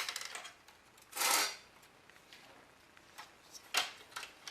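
Small metal and plastic parts of a dismantled CD-i player clicking and clinking as they are handled by hand, with a short scraping rustle about a second in and a sharper click near the end.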